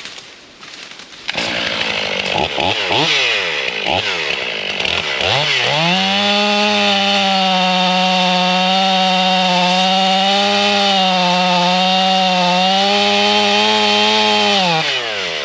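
Two-stroke chainsaw throttling up about a second in with a few quick revs, then held at full throttle for about nine seconds as it cuts into the tree, falling back to idle near the end.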